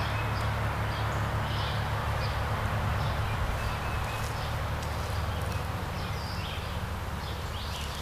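Outdoor yard ambience: scattered short bird chirps over a steady low rumble.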